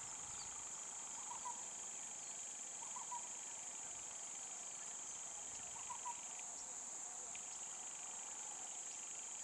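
Steady high-pitched drone of insects in roadside jungle vegetation, with a few faint short chirps over it.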